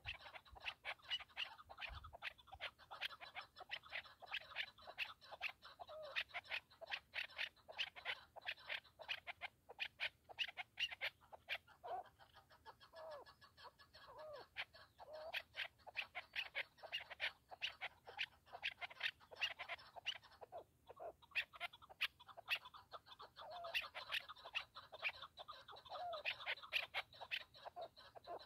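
Chukar partridge calling: a long, unbroken run of short clucking notes, several a second, with a brief pause a little after twenty seconds in.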